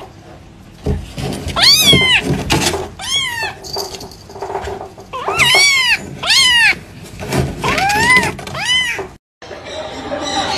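A kitten meowing again and again: about eight short, high-pitched meows that rise and fall in pitch. Near the end the meows stop and a different, steady noisy sound begins.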